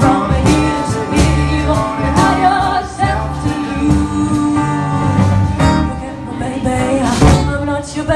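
Live folk band playing: a trumpet carrying the melody over strummed acoustic guitars and a drum kit with cymbals.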